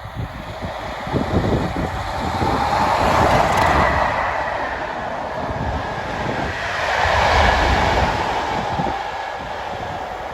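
Train passing on the main line, a steady rushing rumble that swells twice as it goes by, with wind buffeting the microphone.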